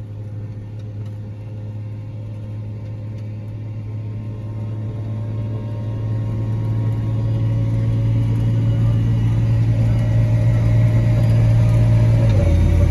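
A large farm machine's diesel engine running steadily with a low hum, growing gradually louder as it comes closer; its note drops a little near the end.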